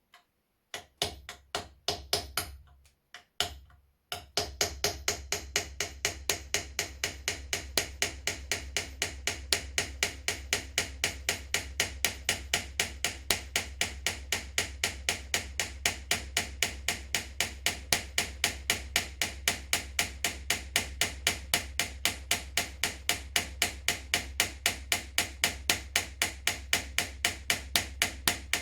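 A few separate knocks, then from about four seconds in a steady run of sharp, evenly spaced knocks, about three a second, over a low hum.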